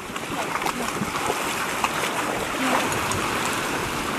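Shallow seawater lapping and washing at the beach's edge: a steady wash with a few faint splashes.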